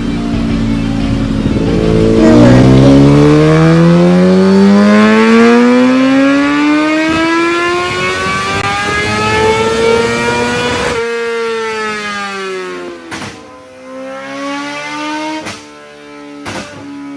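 Ducati Panigale V4 R's V4 engine pulling hard under full throttle, its pitch rising steadily for about nine seconds. The throttle then shuts and the revs fall, with a few sharp cracks near the end.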